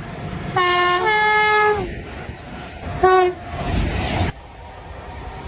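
Train horns: a long blast about half a second in that switches to a different chord partway and sags slightly in pitch as it ends, then a short blast about three seconds in. The short blast is followed by about a second of rumbling train noise that cuts off suddenly.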